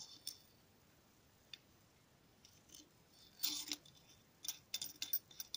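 Light metal clicks and a short scrape from a catch can's thin metal dipstick being slid into and handled in its port on the machined metal oil catch can. The scrape comes about three and a half seconds in, and a quick run of clicks follows near the end.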